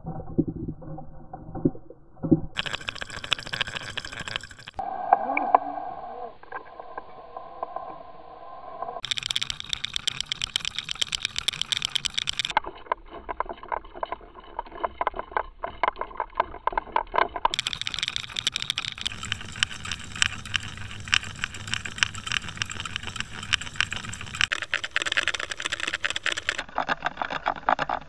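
Underwater sound of fishing lures being pulled through the water: a rush of water with rapid clicking and rattling, changing abruptly several times.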